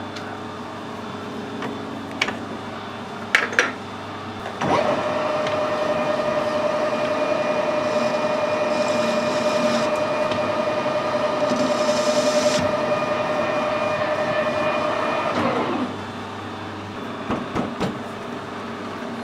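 Metal lathe turning a metal bar: a few clicks and knocks over the spindle hum, then a cutting tool in the cut for about eleven seconds, a loud steady whine that drops away near the end as the cut finishes, leaving the lathe running.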